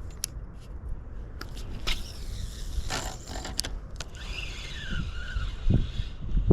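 A spinning reel being cast and worked, giving a few sharp clicks, over a steady low rumble. About four seconds in, a brief whine falls in pitch.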